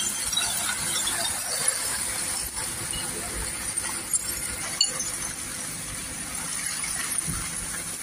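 Refuse lorry running, with scattered clicks and knocks of recycling tumbling out of its raised tailgate.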